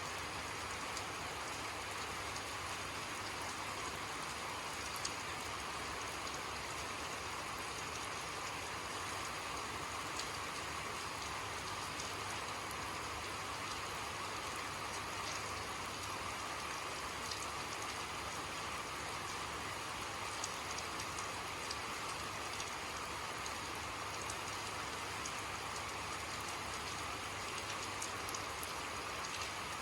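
Steady rainfall, an even hiss with scattered faint drop ticks.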